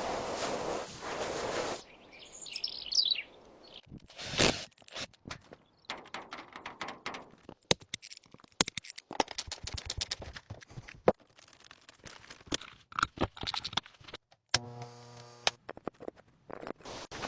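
A string of sharp clicks, knocks and scrapes with a few bird chirps. There is a burst of rushing noise at the start, and a short low buzz about fifteen seconds in.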